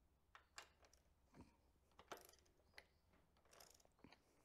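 Faint, irregular clicks and light metal knocks from a torque wrench being worked on the engine mount bolts, the loudest about two seconds in.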